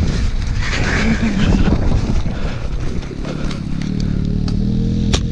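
A four-wheeler (ATV) engine running, its low hum settling to a steady pitch about three and a half seconds in, with a few sharp clicks over it, the loudest near the end.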